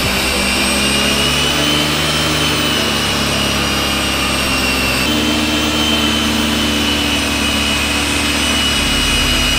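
Electric rotary polisher running steadily, buffing a boat's gelcoat hull to take off oxidation. It makes a steady motor whine with a high whistle, and the pitch shifts slightly about five seconds in.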